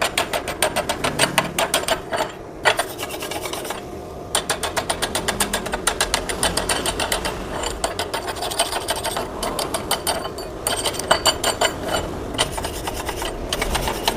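Slag being scraped and brushed off a fresh flux-cored (gasless MIG) weld bead on thick steel plate: rapid rasping strokes in runs of a second or more, with short pauses between runs.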